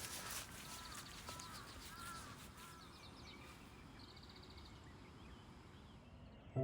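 Faint outdoor ambience with birds calling: a run of repeated, arched calls over the first few seconds, and quick high trills, the clearest about four seconds in.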